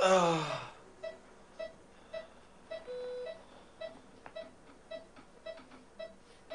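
Hospital patient monitor beeping steadily, about twice a second, with a longer, lower tone every few seconds. A loud tone sweeping down in pitch opens it and lasts under a second.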